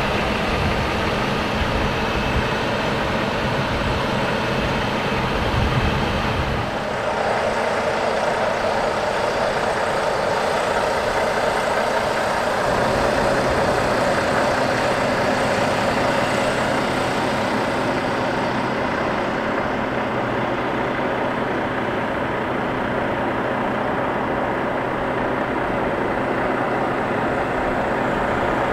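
Steady motor-vehicle noise, a continuous rush and rumble with no distinct events, changing in tone about seven seconds in.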